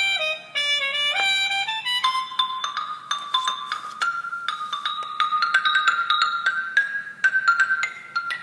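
Watsons Bluetooth speaker playing a tone-test track with no deep bass. A stepping melody runs for about two seconds, then gives way to a quick run of short, sharply struck notes that creep slowly upward in pitch.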